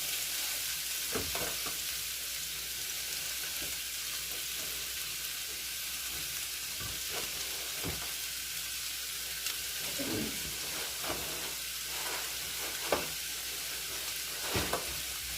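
Chopped peppers and broccoli sizzling steadily in a frying pan, with a few short knocks and scrapes from a utensil stirring them.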